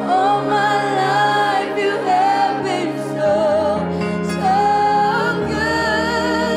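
Live gospel worship song: a woman's voice sings long notes with a slight waver, joined by other singers, over sustained keyboard chords and a band. A low bass note changes twice.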